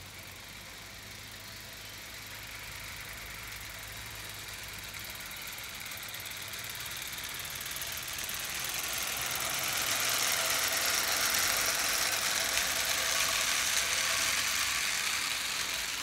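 A 16mm-scale live steam locomotive running steadily along garden railway track with its wagons, a rapid mechanical beat with a steam hiss, growing louder as it approaches and loudest in the last third.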